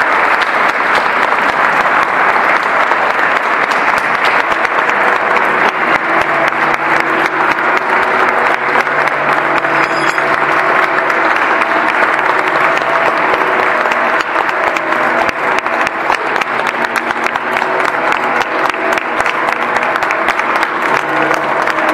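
A large church congregation applauding steadily, with many hands clapping at once. Faint sustained tones sound beneath the clapping from about six seconds in.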